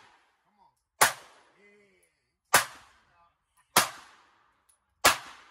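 Semi-automatic pistol fired four times at a steady pace, about one shot every 1.3 seconds, each a sharp crack with a short echo.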